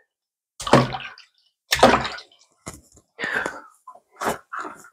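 Water splashing in a string of short bursts as a G10 slingshot frame is rinsed of sanding dust under a kitchen sink tap, with hands rubbing it clean.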